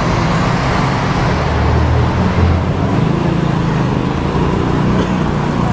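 Road traffic noise: motor vehicles running past with a steady low engine hum.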